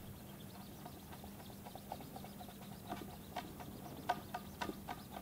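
Faint, irregular light clicks and taps as an alcohol swab is rubbed over a thin steel 3D-printer print sheet lying on a table, over a faint steady hum.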